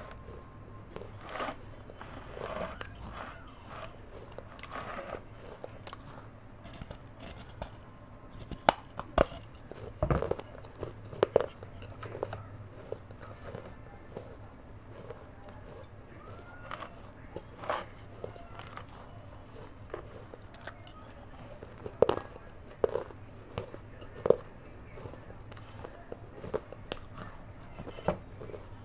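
Close-miked crunching of a baked terracotta clay pot being bitten and chewed. Sharp, irregular cracks come in clusters, about a third of the way in and again in the last third, with softer chewing between.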